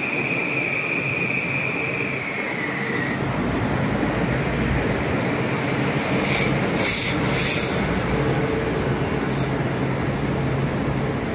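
Metro-North M8 electric multiple-unit train moving along the platform. A high steady whine drops in pitch about two to three seconds in, over a steady hum. A few short hissing bursts come about six to eight seconds in.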